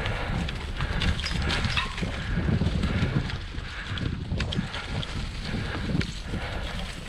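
Bicycle rolling over a sandy, bumpy dirt trail: the bike rattles and clicks over the bumps while riding wind buffets the microphone with a low rumble and hiss.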